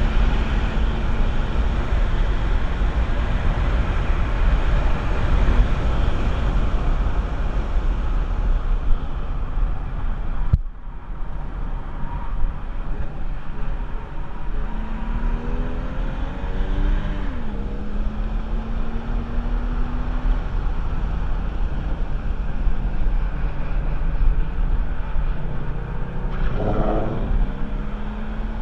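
Porsche 996 Carrera 4's rebuilt 3.6-litre M96 flat-six pulling hard on track, its note climbing slowly and dropping sharply a few times as the Tiptronic gearbox shifts up, under heavy wind and road noise.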